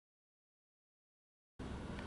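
Dead silence, then about one and a half seconds in a steady background hiss with a low hum cuts in abruptly.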